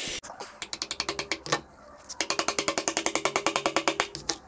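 Hammer tapping a machined steel coupling onto a chainsaw crankshaft: a run of quick metallic taps with one harder blow, a short pause, then a long even run of about ten taps a second that stops near the end.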